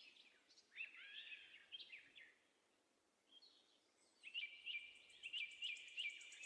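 Near silence with faint bird chirps: a few sweeping calls about a second in, then a run of short, repeated chirps from about four seconds in.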